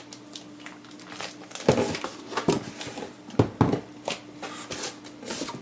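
Packaging crinkling and rustling as a power supply's box and wrappings are handled, in irregular bursts, the loudest about two seconds in and again about three and a half seconds in, over a faint steady hum.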